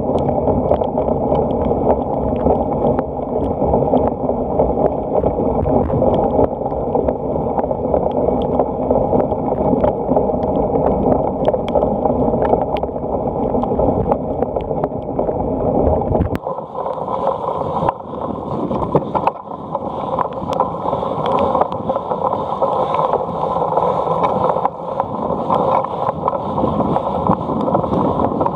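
Wind rush and rattle on a cyclocross bike's on-board camera while riding over rough grass, with many small clicks and knocks. About sixteen seconds in, the deep rumble drops away and a lighter, higher hiss takes over.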